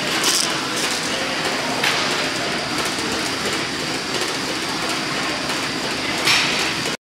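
Steady gym machine noise, a constant whir and hiss of running treadmills and ventilation, with a few brief louder hissing sounds; it cuts off suddenly near the end.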